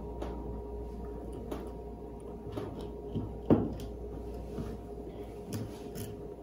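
Light clicks and small scrapes of a screwdriver pressing open the spring terminals of a pneumatics control module as solenoid wire ends are pushed in, a handful of clicks with the sharpest about three and a half seconds in, over a faint steady hum.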